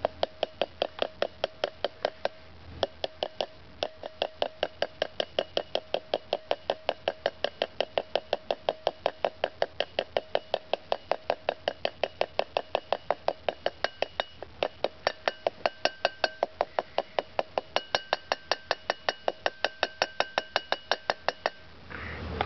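Rapid, steady hammer taps, about four a second, driving a grease seal into a trailer wheel hub, each strike ringing metallically; they pause briefly near the start and stop shortly before the end.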